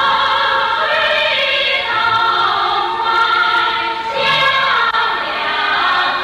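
Background score: a choir singing sustained, slowly gliding lines.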